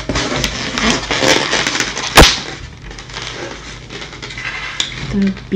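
Styrofoam takeout clamshell being handled and opened: rubbing and creaking of the foam, with one sharp snap about two seconds in as the lid comes open, then quieter handling.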